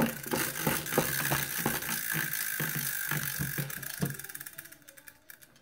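Tabletop prize wheel spinning, its pointer flapper clicking rapidly against the pegs, the clicks slowing and fading as the wheel comes to rest about four to five seconds in.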